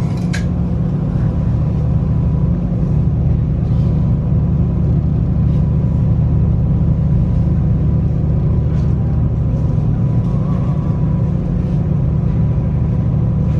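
Steady low machine hum, unchanging throughout, with a faint constant tone above it.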